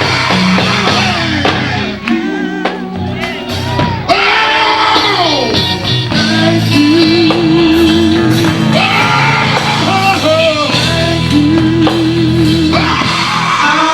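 Live gospel band playing, with a lead singer shouting and singing long sliding wordless phrases over sustained bass and keyboard notes.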